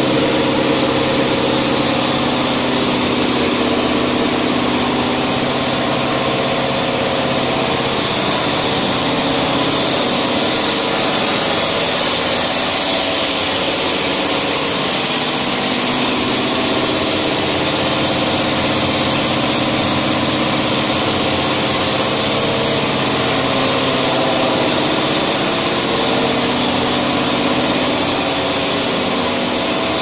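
Cable-making factory machinery running steadily: a continuous hum of several held tones under a high hiss.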